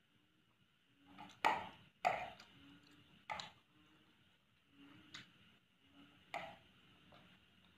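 Eating sounds: a fork clicking and scraping on a ceramic plate, with mouth sounds of chewing. About five sharp clicks spread out, the loudest two about one and a half and two seconds in.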